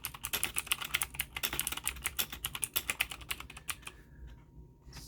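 Rapid typing on a Xinmeng mechanical keyboard with clicky blue switches, a quick run of sharp key clicks that stops about four seconds in.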